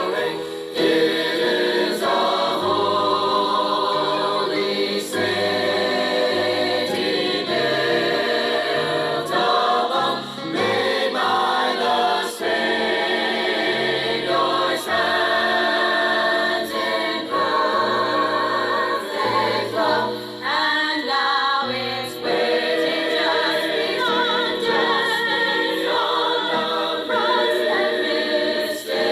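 A choir singing a gospel song, several voice parts holding and moving between chords together, with low bass notes changing every second or two.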